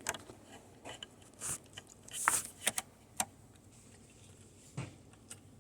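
Scattered clicks and scrapes of a RAM stick being pushed and worked into its memory slot, which is reluctant to clip in.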